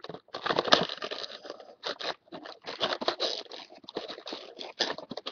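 Beyblade packaging being torn and crinkled open by hand: a run of irregular crackles and short ripping sounds.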